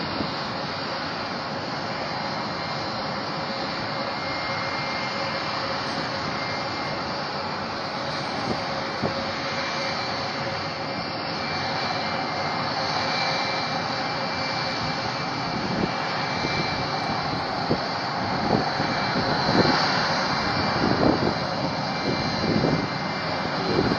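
Jet aircraft engines running steadily, a dense rushing noise with a steady whine, and some irregular knocks in the last third.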